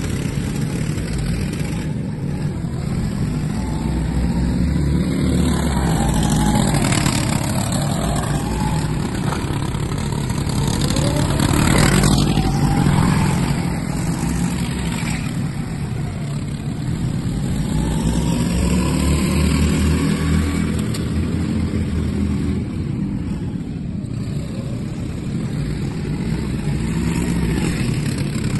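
Go-karts running laps around a track, their motors rising and falling in pitch as they pass, the sound swelling and fading several times and loudest about twelve seconds in.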